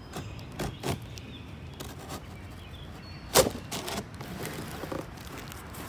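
Scissors cutting and scraping along packing tape on a cardboard box: a few scattered snips and scrapes, with one louder sharp snap about three and a half seconds in.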